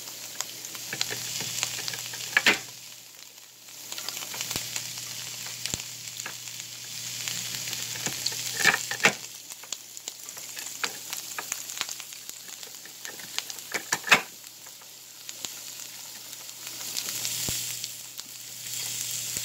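Onions sizzling steadily as they fry in oil in a pan. A few sharp clicks and knocks come from a plastic wire-blade vegetable slicer being pushed through zucchini, the loudest about three-quarters of the way through.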